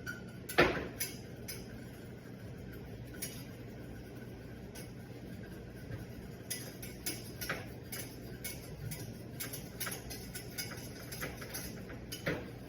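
Whisk clicking and scraping against a saucepan as flour is whisked into melted clarified butter to make a roux, with irregular light taps and a louder knock about half a second in and again near the end. A steady low hum runs underneath.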